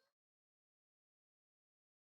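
Silence: the audio has faded out completely.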